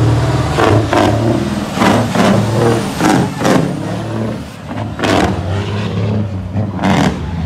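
A heavy truck's diesel engine running close by as trucks drive past, with several short, sharp bursts of noise over it.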